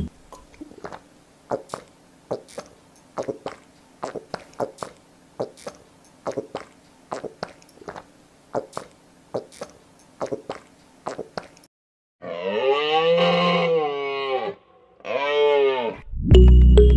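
A run of soft short clicks, about two a second, then a cow mooing twice near the end: one long moo and a shorter one after it.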